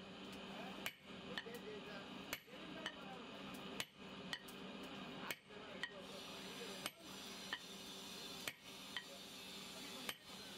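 Hammer blows striking a red-hot steel bar held upright on a steel plate, each a sharp metallic clang, coming in pairs about every second and a half.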